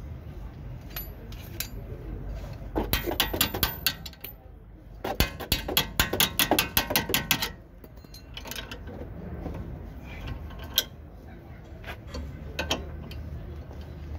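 A wrench ratcheting on a suspension bolt in the wheel arch: two spells of quick metallic clicks, the second longer, as the bolt is turned. A single sharp knock near the end.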